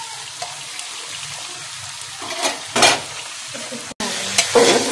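Mutton, onions and spice powders sizzling in hot oil in an open pressure cooker, a steady frying hiss. A metal ladle stirs and scrapes the pot a few times in the second half, and the sizzle and stirring are louder in the last second.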